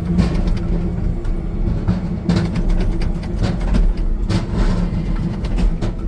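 Hitachi ZW50 compact wheel loader's diesel engine running steadily, with repeated knocks and clatters of split firewood dropping.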